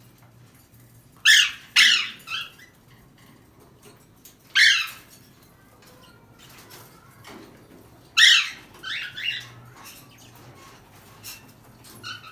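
A parrot giving short, loud, harsh squawks: two about a second in, one near the middle, and a quick run of several more past two-thirds through.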